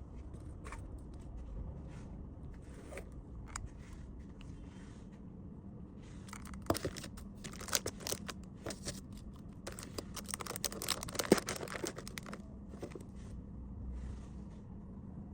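Packaging crinkling and rustling, with scattered small clicks and taps as items are handled and packed, busiest in the middle stretch.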